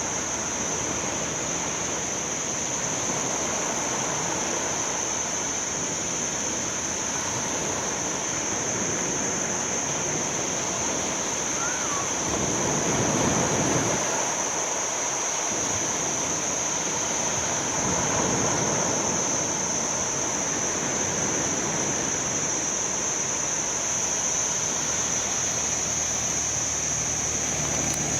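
Sea waves washing onto the shore: a steady rush of surf that swells louder about halfway through and again a few seconds later. A steady high-pitched tone runs beneath it throughout.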